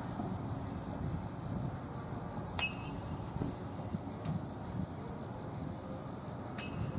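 Crickets chirping in a steady high trill over a low, steady outdoor background rumble, with two short clicks, one about two and a half seconds in and one near the end.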